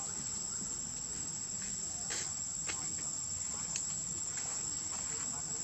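Steady, high-pitched drone of insects such as crickets or cicadas, with a few faint clicks.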